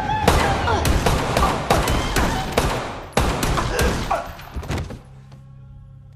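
A rapid run of about a dozen gunshots, mixed with a person's cries. They stop suddenly about five seconds in, leaving a low steady hum.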